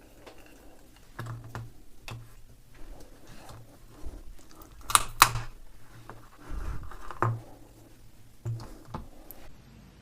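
A bicycle lock being handled and attacked in a strength test: irregular metallic clicks, knocks and scrapes, with two sharp knocks about five seconds in.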